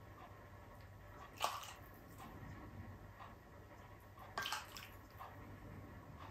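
A metal spoon ladling hot sinigang broth from a pan into a glass mug: faint pouring and dripping, with two sharper clinks of the spoon, about a second and a half in and again about four and a half seconds in.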